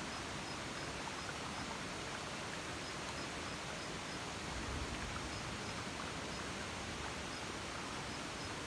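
Steady outdoor forest ambience: an even hiss with faint scattered ticks and a faint high, evenly pulsing tone, and a brief low rumble about five seconds in.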